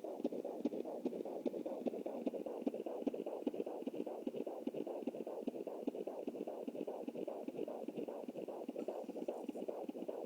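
Fetal heartbeat played through a Jumper handheld fetal Doppler's speaker: a fast, even galloping pulse, about four to five pulses a second.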